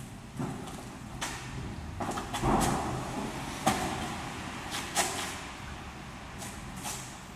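Rustling with several sharp clicks and knocks as gear is handled and unloaded from a parked motorcycle. The rustling is loudest a couple of seconds in, and the sharpest clicks come around the middle.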